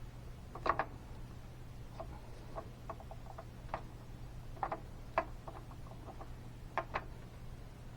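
Light, irregular clicks and taps of small metal starter-drive parts (gears and pin) being handled, several in quick pairs, over a steady low hum.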